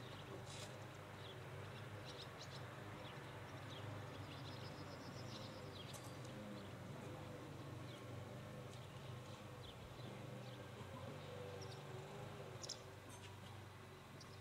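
Faint outdoor evening ambience: scattered high chirps of distant small birds and a short, evenly ticking trill about five seconds in, over a steady low hum.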